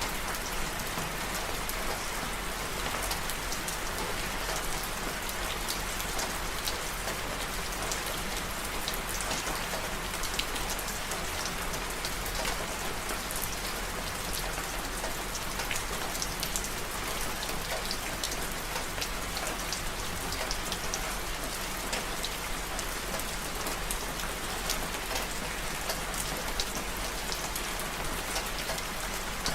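Steady rain, a constant hiss with many small, sharp drop hits scattered through it.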